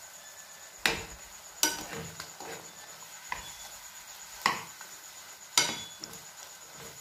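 Metal spoon clinking and scraping against a non-stick frying pan as prawns are stirred: four sharp clinks and a few softer ones, over a faint steady sizzle from the pan.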